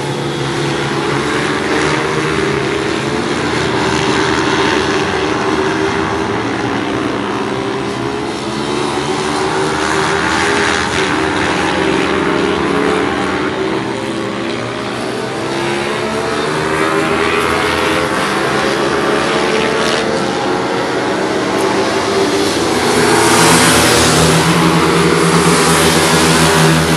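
Stock pit bikes racing, their small single-cylinder four-stroke engines revving up and down as they accelerate and brake round the track, several engines heard at once. The sound grows loudest near the end as bikes pass close by.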